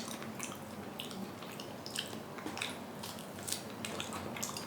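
Close-up chewing with irregular wet clicks and crackles from the mouth.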